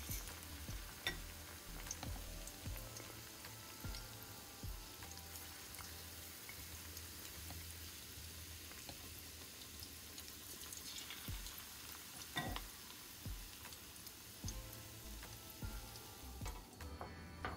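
Battered seaweed rolls deep-frying in hot oil, a steady sizzle with a few sharp clicks and pops.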